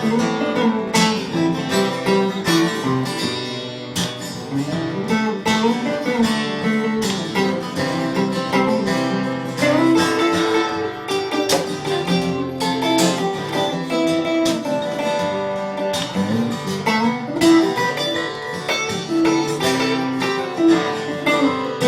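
Acoustic guitar playing an instrumental break in a folk-style song, with a steady run of picked notes and chords and no singing.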